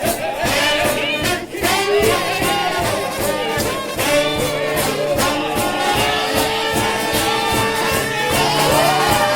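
Trombone shout band playing a fast gospel shout tune: massed trombones and other brass hold loud sustained chords over a steady, quick drum beat.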